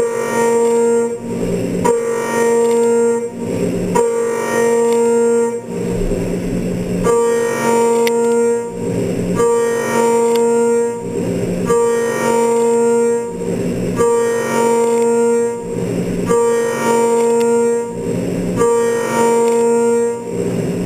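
CNC end mill cutting steel at high speed, a loud pitched whine from the cutter's teeth that swells and changes about once a second as the trochoidal toolpath sweeps the cutter in and out of the cut.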